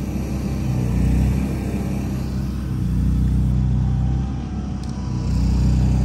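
An engine running, swelling louder three times: about a second in, around three seconds in, and near the end.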